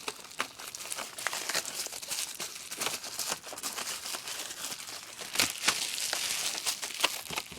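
Packaging crinkling and rustling as an item is worked out of a box, with many small crackles and clicks, a couple of them sharper.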